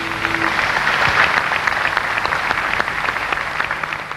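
Audience applauding: the dense clatter of many hands clapping, easing off near the end.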